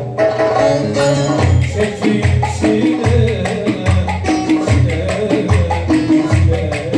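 Turkish folk dance music played live by a small band through an amplifier: a melody over a steady drum rhythm, with a deep beat about every three-quarters of a second.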